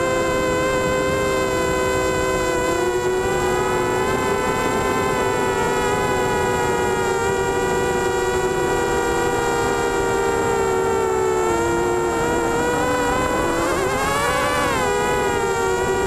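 Mini FPV quadcopter's four Emax MT1806 brushless motors spinning 5x3 props in flight, heard from on board as a steady high-pitched buzz of several close tones. The pitch drifts slightly throughout and swings up and down near the end.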